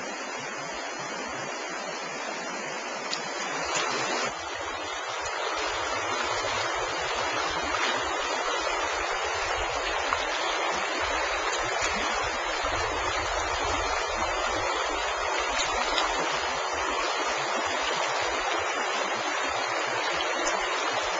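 Stream water rushing steadily, with a low rumble joining about four seconds in.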